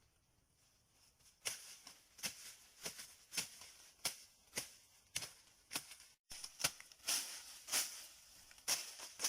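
Repeated sharp strikes from a hand tool on bamboo or wood, about two a second, each with a short bright ring. There is a brief gap just after six seconds.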